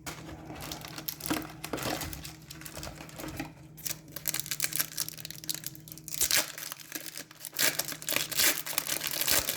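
Crinkling and tearing of a hockey card pack wrapper being opened and handled, in irregular crackles, over a faint steady hum.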